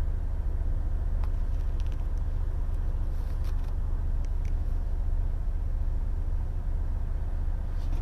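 Steady low rumble of a semi-truck's idling engine heard from inside the cab, with a few faint clicks in the first half as a headset is handled.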